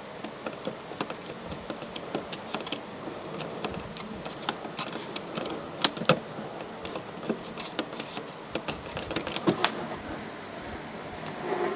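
Irregular small clicks and taps of hands working on the opened DVD player's mechanism, several a second.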